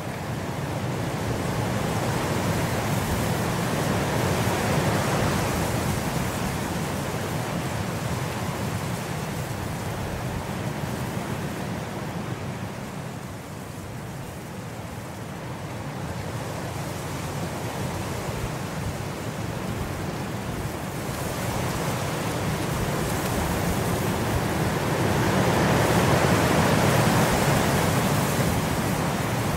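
Steady rain ambience, a dense even hiss with no separate drops, slowly swelling and easing over many seconds.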